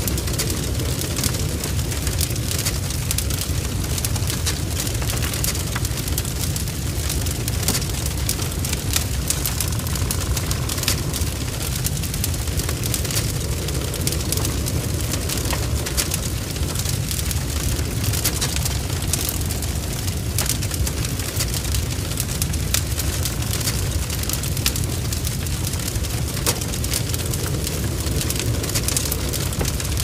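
Wood fire blazing: a steady low rush of flames with frequent sharp crackles and pops from the burning wood.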